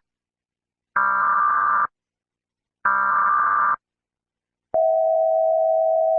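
Emergency Alert System-style header tones: buzzy electronic data bursts about a second long, spaced about a second apart, then a steady single alert tone starting near the end.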